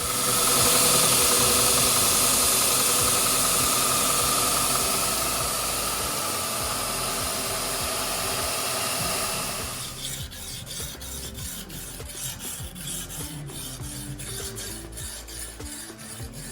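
Abrasive workshop tool rasping on a workpiece: a loud, steady hiss for about ten seconds, then quieter, rapid scraping strokes to the end.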